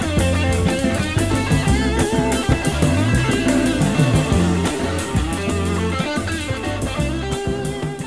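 Instrumental rock music: an electric guitar melody over a drum kit, playing steadily.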